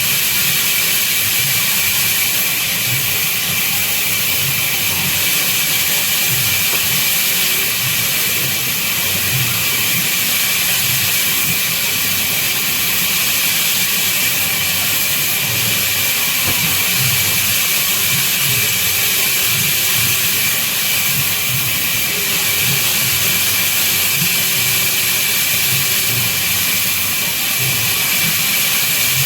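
Band saw running and cutting through babool (acacia) wood: a loud, steady hiss with an uneven low rumble underneath.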